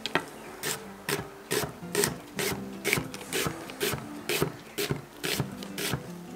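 Kitchen knife slicing an onion on a wooden cutting board: a steady run of crisp cuts, about two a second.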